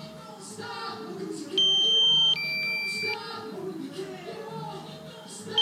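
Electronic two-tone warning beep from a drone's remote controller: a high tone then a slightly lower one, each under a second, repeating about every four seconds, over a murmur of voices or music.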